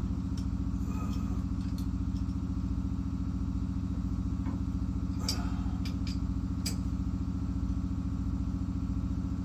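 Steady low machine hum, with a few light metal clicks of nuts and tools being handled about five to seven seconds in.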